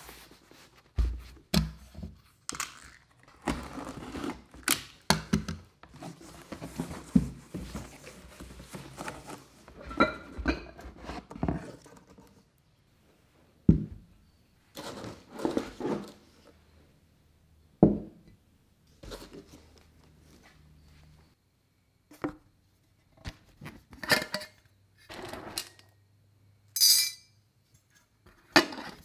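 Handling sounds with no speech: a cardboard parcel carried and opened, then ceramic pet bowls set down with thunks and light clinks. A metal food tin is handled near the end. The noises come as a string of separate knocks and rustles with short pauses between them.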